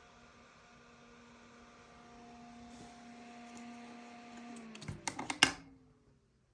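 Noctua NF-F12 iPPC-2000 120 mm fan running with a steady hum over an airy hiss. A little under five seconds in, its pitch starts to drop as it spins down, a handful of sharp clicks and knocks come about five seconds in, the last and loudest near five and a half seconds, and the sound then dies away.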